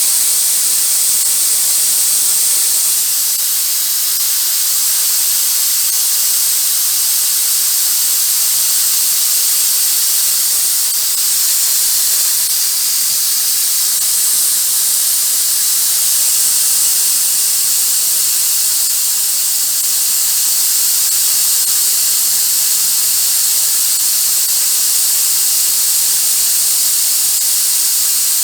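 Compressed air hissing steadily out of the regulated air line as the compressor and its auxiliary tank drain, flowing at about 40 psi, as a spray gun would draw it.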